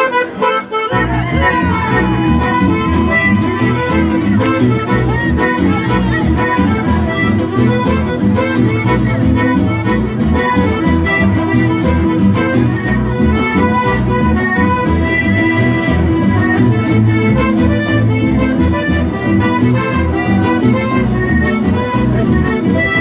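Chamamé music: an accordion-led band playing an instrumental passage with guitars, the full band coming in with bass and rhythm about a second in.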